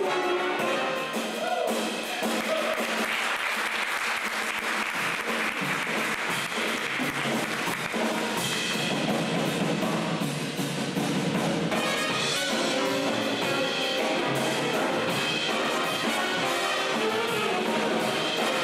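Jazz big band playing live: brass and saxophones over piano, upright bass and drum kit.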